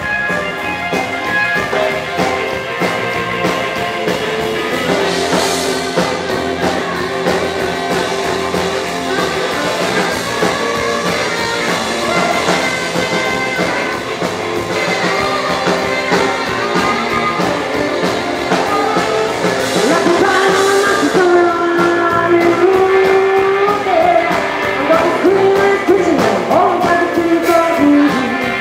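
Live rockabilly band playing: electric guitar, saxophone and drums. A woman sings in the second half, where the music gets a little louder.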